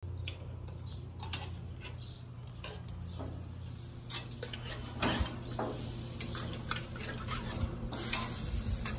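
Scattered light clicks and clinks of handling at a stainless gas grill, over a low steady hum that is strongest in the first few seconds.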